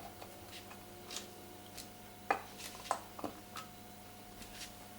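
Small Torx T6 screwdriver working tiny screws into an Apple TV 4's internal bracket: a few sharp metallic clicks and light scrapes, spaced out, with the clearest three coming about half a second apart past the middle.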